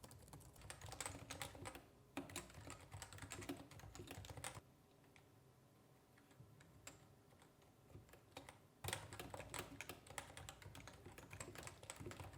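Fast typing on a computer keyboard, quiet rapid key taps, in two stretches with a near-silent pause of about four seconds in the middle. This is a typing loudness test comparing the Novatouch TKL's hybrid capacitive, Topre-style linear switches with a laptop keyboard.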